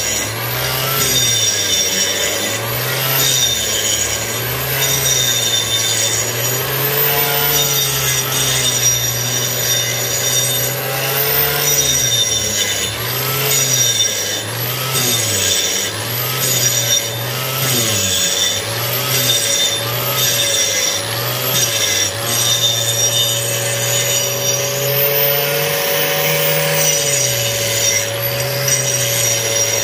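Angle grinder fitted with a dust-extraction shroud grinding down a concrete floor, its motor pitch repeatedly dipping and rising as it is pushed into the surface.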